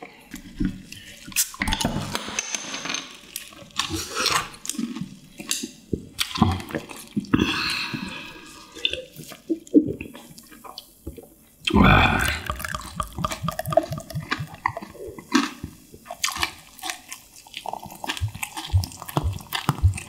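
Soju being poured from a green glass bottle into a drinking glass, the liquid glugging and splashing, amid short clicks and knocks of glass and tableware.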